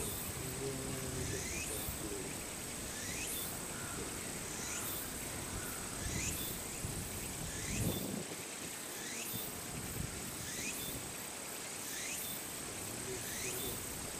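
Insects calling: a steady high-pitched trill with a sweeping chirp repeated about every second and a half, and a brief low thump a little past the middle.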